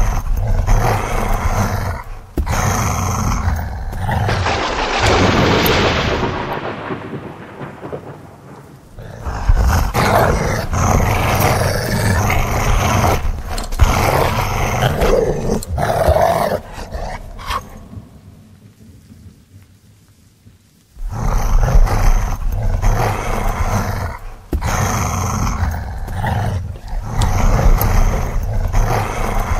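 Loud roaring and growling in several separate stretches, broken by short cuts, with a quiet lull about two-thirds of the way through.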